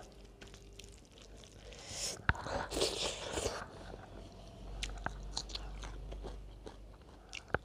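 Close-up mouth sounds of eating: chewing, with a crisp crunching stretch about two to three seconds in, fitting a bite of raw cucumber, amid small scattered clicks.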